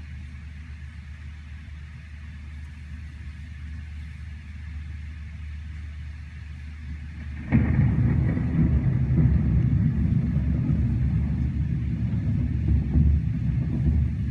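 Steady rain under a faint low rumble. About halfway through, a loud, low rumble of thunder breaks in suddenly and keeps rolling.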